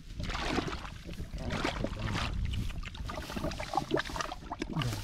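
Hands scooping and splashing in shallow muddy water in a small dug hole, in irregular bursts.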